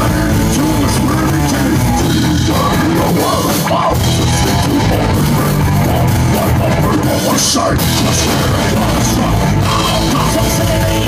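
Rock band playing a loud, heavy song live, with a drum kit driving it.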